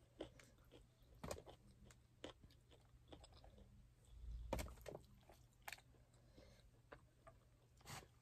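Quiet chewing and biting of chicken and biryani, with scattered soft mouth clicks and a louder knock about four and a half seconds in.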